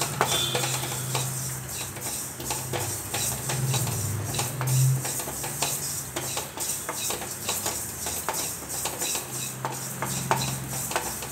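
A wooden spatula stirring and scraping black sesame seeds as they dry-roast in a stainless steel kadai, with many small irregular clicks. A low hum comes and goes underneath.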